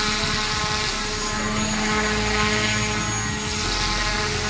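Small brushless electric motor spinning an air propeller on a model airboat, running steadily with a buzzing whine at an even pitch.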